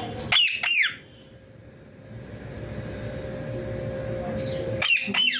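A parrot giving two shrill calls, each a quick run of two or three notes falling in pitch: one just after the start and one near the end. A steady hum runs underneath.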